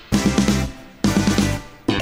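Background music with a drum-kit beat, in two short phrases that each open with a hit and fade, about a second apart.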